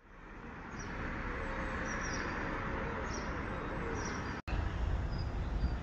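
Outdoor ambience: small birds chirping now and then over a steady background hiss. A sudden cut about four and a half seconds in brings a stronger low rumble.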